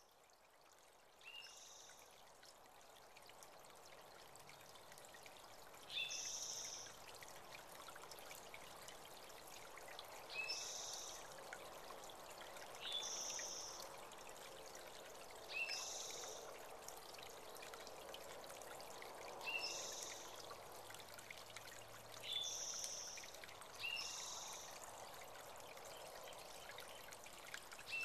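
Small creek trickling steadily, with a bird repeating a short two-note call, a lower note then a higher one, every few seconds.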